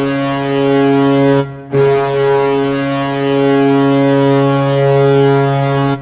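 Toronto Maple Leafs hockey goal horn sounding, a low air horn with several steady tones at once. It gives two blasts: a short one that stops about a second and a half in, then a long held one.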